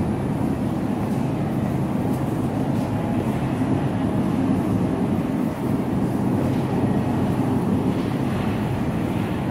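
Shopping cart rolling across a store floor, a steady loud rumble and rattle of its wheels and frame that runs on without a break.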